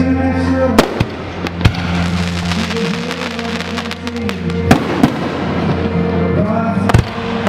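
Aerial fireworks exploding, with several sharp bangs scattered through (about a second in, near the middle and near the end), over music playing steadily.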